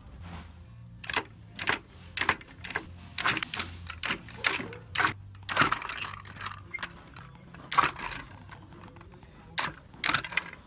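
Hard plastic treat-dispensing dog toys clattering and knocking as a small dog noses and paws a treat ball around its plastic dish: irregular sharp clicks, sometimes several a second.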